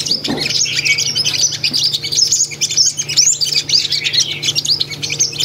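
Sunbirds in wire trap cages, a decoy and a bird set against it, giving quick, high chirps in a dense, continuous run as they square off. The exchange is not very intense.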